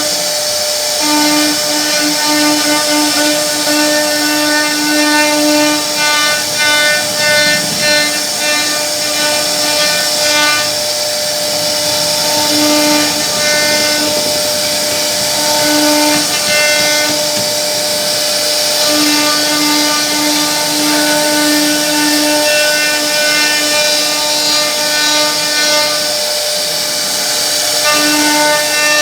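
CNC router spindle running steadily while its bit carves a wooden board: a constant pitched whine over a strong hiss of cutting, its higher tones fading in and out as it works.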